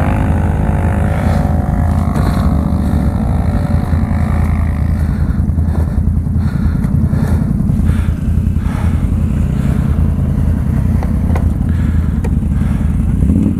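Can-Am Renegade 1000 XXC ATV's V-twin engine running under way, with a heavy steady rumble. Its pitch wavers up and down in the first few seconds, and a scattering of sharp clicks and knocks comes through later.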